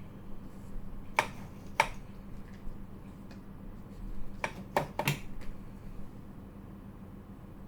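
Spring-loaded desoldering pump (solder sucker) snapping as it is cocked and fired on soldered connector pins: five sharp clicks, two about a second in and three in quick succession near the middle.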